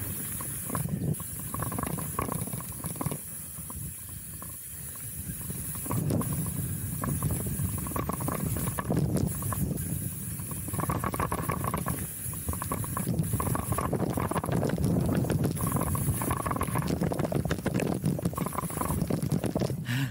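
Chromag Rootdown steel hardtail mountain bike rolling fast down a dirt singletrack: tyre noise and a constant clatter of small knocks and rattles from the bike over the trail, under a low rush of wind on the camera's microphone. It grows louder from about six seconds in.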